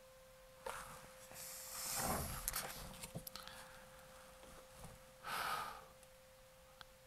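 Clicks and rustling from handling gear close to the microphone, then a short breath out about five seconds in, over a faint steady tone.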